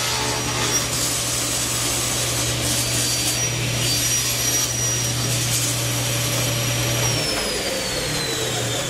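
Table saw running while a board is pushed through the blade on a crosscut sled. About seven seconds in, the motor hum cuts off and the whine falls steadily in pitch as the switched-off blade spins down.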